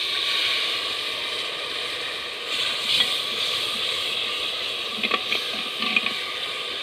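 Hot ghee and fried onion-garlic-ginger masala in a clay handi sizzling steadily after a splash of water is poured in, sending up steam, the step that turns it into the tadka. A steel spoon stirring the pot clicks against the clay a few times, mostly in the second half.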